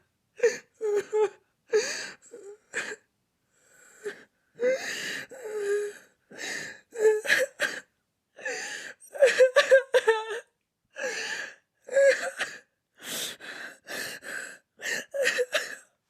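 A high-pitched voice making a quick series of short, breathy vocal sounds like gasps and whimpers, with brief pauses between them.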